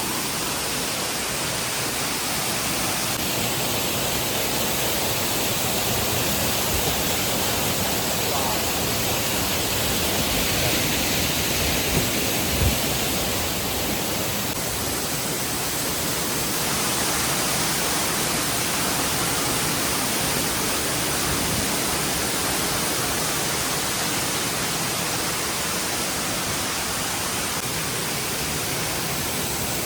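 Waterfall water rushing as a steady, even roar, with two brief knocks about twelve seconds in.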